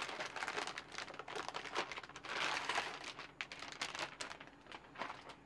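Plastic packaging crinkling and rustling in irregular bursts with small clicks as a motherboard is unwrapped from its anti-static bag.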